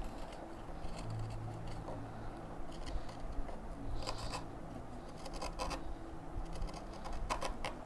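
Hand chisel paring thin shavings from the edge of a small wooden scoop: a series of short scraping cuts about a second apart.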